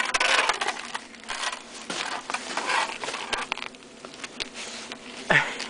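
Irregular crunching, rustling and clicking of a toddler in a snowsuit moving about and handling snow, with a brief voice sound near the end.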